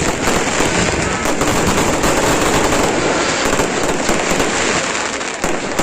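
Fireworks going off: a dense, continuous crackle of many rapid small pops and bangs without a break.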